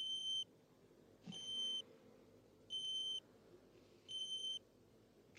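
Pocket electronic pager bleeping four times, a steady high-pitched beep of about half a second repeated every second and a half: a call paging its wearer.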